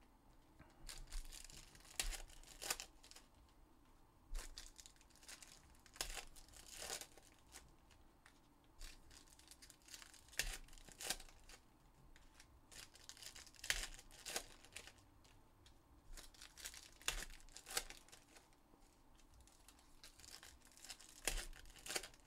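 Plastic wrapping on a trading-card hobby box and its packs being torn and crinkled by hand, in short, irregular crackling bursts.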